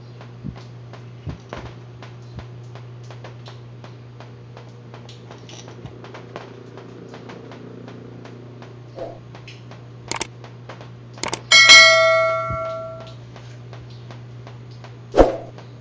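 Subscribe-animation sound effects: a couple of sharp clicks about ten seconds in, then a bright bell ding that rings out and fades over about a second and a half, followed by another click. Under them runs a steady low hum with faint, regular ticking.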